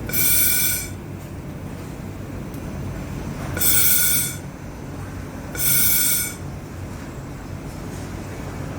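Battery laser welding machine cycling: three short, loud hissing bursts with a whistling tone, each under a second and about two seconds apart, over a steady machine hum.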